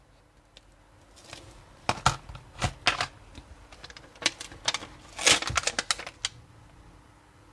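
Scattered sharp taps and clicks of rubber stamping: a stamp on its block tapped onto an ink pad and pressed onto paper, with a quick run of taps about five seconds in.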